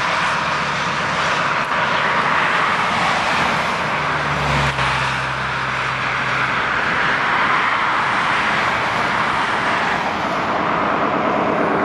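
Steady rush of road traffic passing close by on a highway, with a vehicle's engine hum joining for a couple of seconds about four seconds in.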